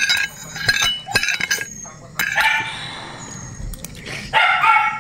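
A dog barks twice, once about two seconds in and again near the end, over spoon clinks and soup sipping in the first second and a half.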